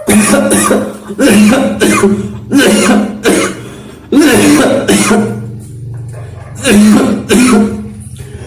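A man coughing over and over, a long run of harsh coughs in quick succession with a short lull about five to six seconds in.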